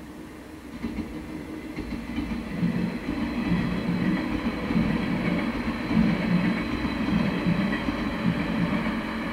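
A train passing on the San'yō Main Line, wheels running over the rails. The sound swells from about a second in and stays loud, with an uneven low rumble and a faint steady high tone over it.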